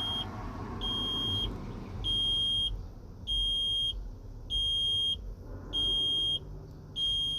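Electronic warning buzzer in the truck beeping at a steady pace, a high single-tone beep about half a second long roughly every 1.2 seconds.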